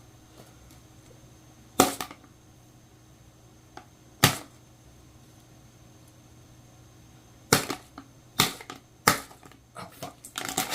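A Pringles can being opened: a couple of separate sharp clicks from the plastic lid, then a run of quick clicks and crinkles near the end as the foil seal is worked off.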